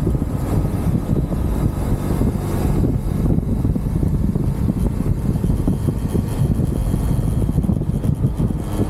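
UM Renegade Commando 125 motorcycle engine running steadily while the bike is ridden, heard close up from the handlebars.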